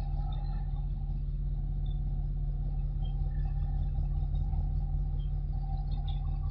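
Steady low rumble with a faint steady hum above it; faint short high chirps come and go.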